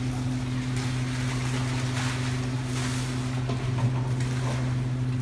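A machine motor running at a steady pitch: a constant low drone that does not change, with a faint hiss over it.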